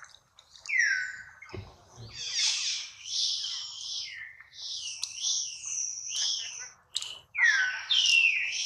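Infant long-tailed macaque crying: a run of high-pitched squeals, with two louder falling cries, one about a second in and one near the end.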